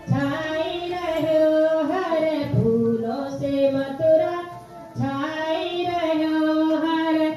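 A woman singing a song into a handheld microphone, amplified, in three long phrases of held, slowly bending notes with brief breaks between them.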